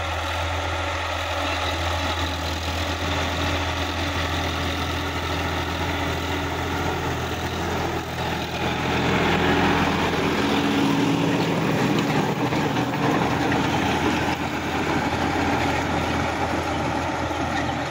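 Sonalika DI-50 RX tractor's diesel engine running steadily as it works the field with a rear-mounted rotavator, growing louder as the tractor passes close about halfway through and easing off a little near the end.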